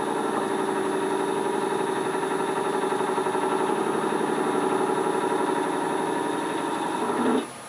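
Dremel rotary tool running steadily, its ball-shaped bit pressed against the end grain of wood spinning on a lathe to texture it: a continuous whirring with a fine rapid flutter and a thin high whine over it. The sound drops away abruptly near the end.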